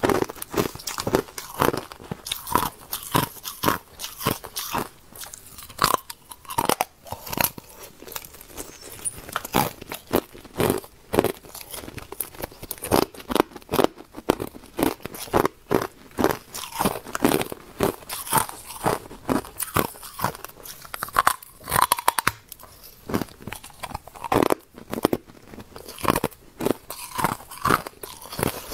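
Hard clear ice being bitten and chewed: a dense, irregular run of sharp crunches, several a second.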